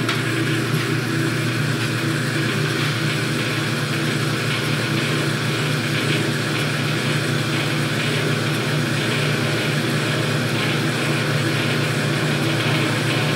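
Delta 14-inch vertical bandsaw running with no workpiece, its motor driving the blade through a jackshaft belt-and-pulley reduction that slows it for cutting metal: a steady, even machine hum.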